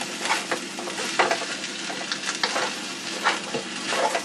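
Rice and vegetables sizzling as they are stir-fried in a stainless steel wok, with irregular scraping and knocking strokes as the food is stirred and tossed.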